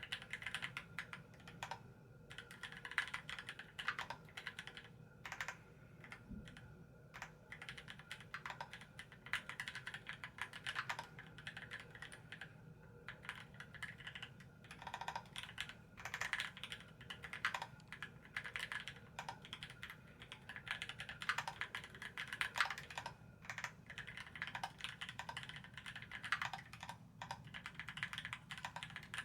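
Continuous typing on a 60% mechanical keyboard in an aluminium case with a sandwich-mounted aluminium plate, filmed and lubed Gateron Kangaroo switches and GMK keycaps: a fast, uneven stream of key clicks and clacks.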